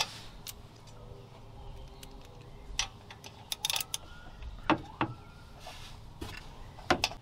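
Scattered, irregular metal clicks of a ratchet wrench and socket worked on the bolt of a VW GTI downpipe exhaust hanger. The locking nut behind is not holding, so the bolt does not tighten.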